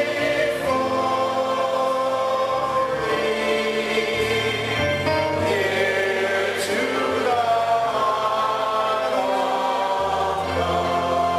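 Choir and congregation singing a slow gospel worship song. Long notes are held over low chords that change every few seconds.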